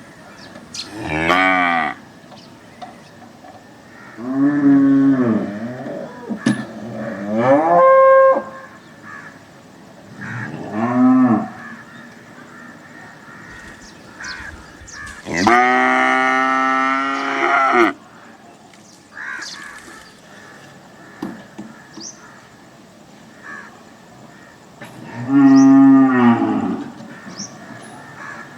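Cows mooing: about six separate moos with quiet gaps between them, the longest lasting over two seconds about halfway through.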